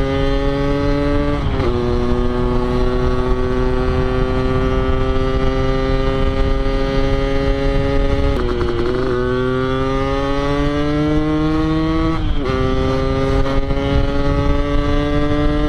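Yamaha RX-King two-stroke single-cylinder motorcycle with an under-slung 'kolong' expansion-chamber exhaust set up for the Medan-style 'ngorok' note, accelerating through the gears. The engine note climbs slowly, then drops sharply at each of three upshifts, about a second and a half in, about eight and a half seconds in and about twelve seconds in.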